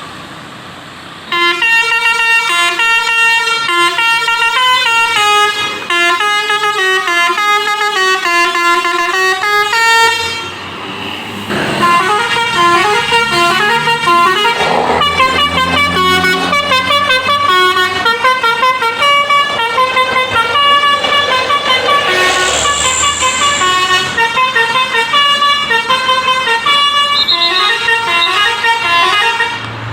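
Basuri 'telolet' multi-tone bus horn playing a stepping melody of clear tones, starting about a second in. It breaks off briefly near the middle, then plays a second, longer tune.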